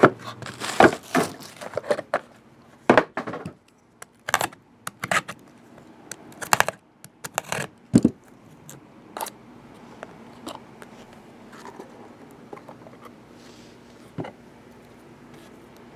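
Sharp clicks, taps and light knocks of a trading-card box and its wrapping being handled as the box is opened and the stack of cards taken out. They come thick for the first eight seconds or so, then thin out to a few faint taps.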